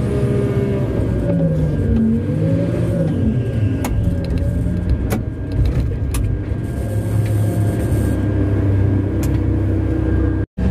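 Heavy mining-machine diesel engine running loudly, its pitch falling and rising as it works under load, with several sharp knocks spread through the middle. The sound cuts out for a moment near the end.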